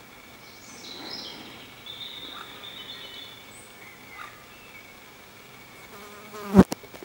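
Woodland ambience with a faint steady high tone and a few short faint bird chirps. Near the end a flying insect buzzes briefly close by, the loudest sound, followed by a sharp click.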